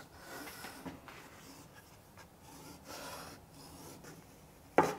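Wheel marking gauge drawn along the edge of a hardwood strip, its cutter scoring the rebate's depth line with faint scratching in several strokes. A single sharp click near the end.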